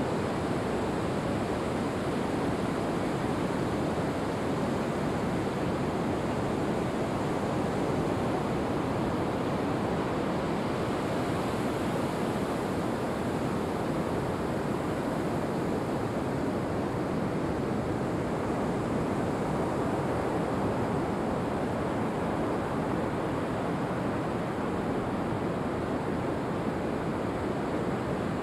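Ocean surf washing onto a sandy beach: a steady, even rush of waves with no single break standing out.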